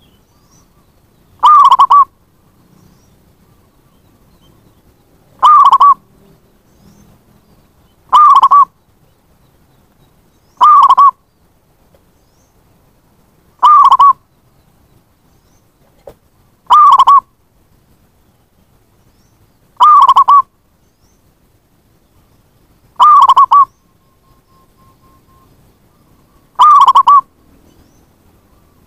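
Zebra dove (perkutut) calling: nine loud, short cooing calls, each about half a second, repeated roughly every three seconds.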